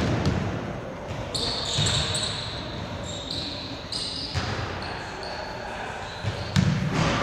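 Basketball bouncing and being caught on a hardwood gym floor: a few deep thuds spread a second or two apart, echoing in the large hall. Short high squeaks come in between.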